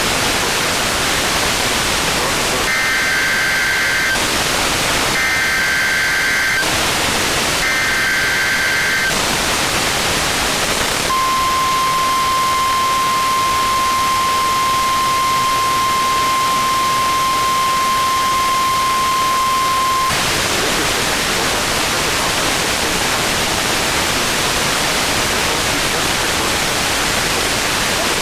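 NOAA Weather Radio over heavy radio static: three short bursts of SAME digital header warbles, then the steady 1050 Hz warning alarm tone for about nine seconds, then static alone. These are the header and alert tone sent for a weekly test.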